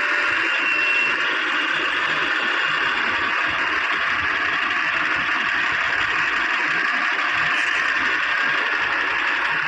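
Steady, even running noise of heavy diesel machinery, heard mostly as a hiss with no distinct knocks or revving.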